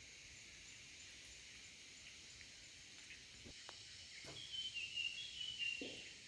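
Faint, steady high-pitched drone of cicadas. Over the last two seconds or so a bird breaks in with quick, repeated short chirps.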